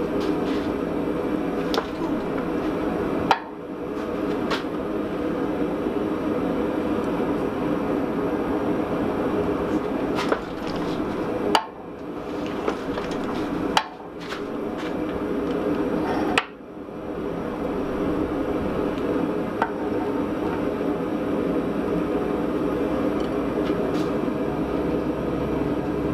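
Hydraulic forging press running steadily as its punch is driven into a glowing-hot steel block to punch a hammer eye, with sharp clicks or knocks about eight times; after several of them the running sound drops briefly and builds back up.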